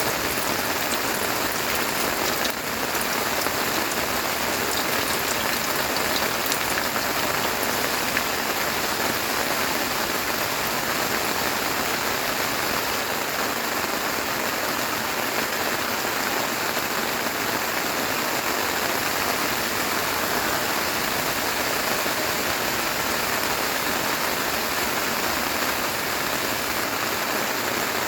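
Heavy rain falling steadily and evenly, with scattered individual drops standing out.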